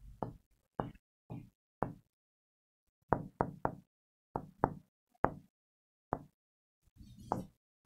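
A pen knocking against a writing board as words are handwritten: about a dozen short knocks at uneven intervals.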